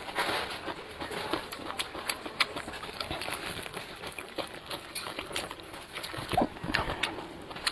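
Close-up eating sounds of tiger-skin peppers being chewed: a run of wet clicks and smacks from the mouth. About six and a half seconds in there is a short tone that rises and falls.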